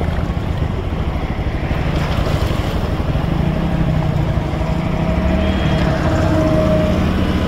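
Motorcycle engine running at low speed as it rides through shallow floodwater, with water swishing around the wheels over a steady low rumble.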